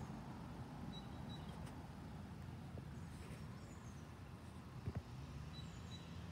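Faint outdoor ambience: a steady low rumble with a few short, high bird chirps, a pair about a second in and another pair near the end, and a single soft bump about five seconds in.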